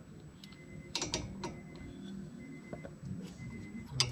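Ratchet wrench turning a brake caliper bolt: a quick cluster of sharp metal clicks about a second in, then softer scattered clicks.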